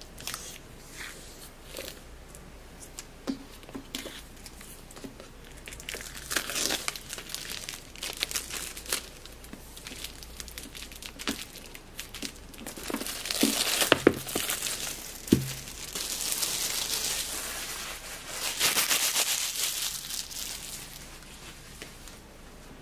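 Packaging being crinkled and torn open while unboxing, in several rustling stretches, loudest and busiest a little past the middle, with a couple of sharp knocks there.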